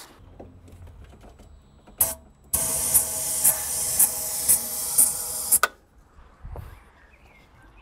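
Aerosol can of cold start spray hissing into the engine's air intake: a short spurt, then a steady spray of about three seconds with brighter pulses about twice a second, cut off sharply. The spray is a test of whether the non-starting engine will fire on it, to tell a fuel fault from a spark or timing fault.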